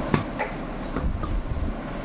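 A steady low rumble with a few light clicks and knocks of food being handled in a steel tray.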